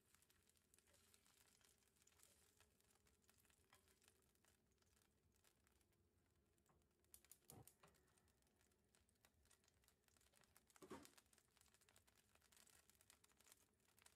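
Faint crackling of hot oil in a nonstick frying pan, the oil left over from frying chicken pieces. Two brief louder bumps come about halfway through and again a few seconds later.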